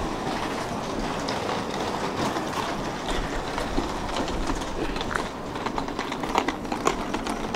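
Steady hum of a tram standing at a stop with its doors open, with footsteps clicking on the platform paving. The hum drops a little about five seconds in, and the footsteps stand out more after that.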